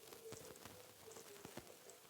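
Close-miked chewing: soft wet mouth sounds with many small irregular clicks and smacks.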